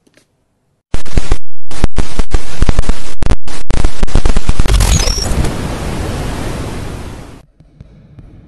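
A loud burst of harsh static noise that cuts in about a second in, stutters with several quick dropouts, then settles into a steady hiss that fades away over about three seconds: a glitch-style channel logo sound effect.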